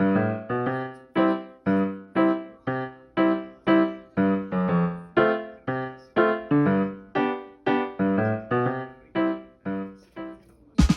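Background music: a keyboard plays short chords at a steady beat, about two a second, each dying away quickly. Near the end a brighter, tinkling passage with high notes comes in.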